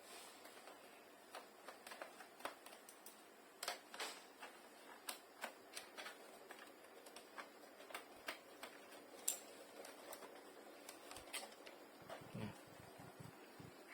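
Irregular small clicks and taps of screws and plastic parts being handled during a laptop's disassembly, a few a second, some sharper than others.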